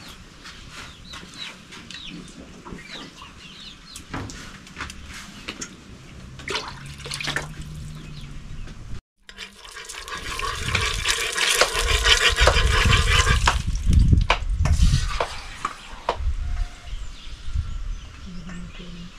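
Chicken pieces frying in hot oil in a cast-iron caldero over a wood fire. A loud sizzle swells about halfway through and then settles, with scattered knocks around it.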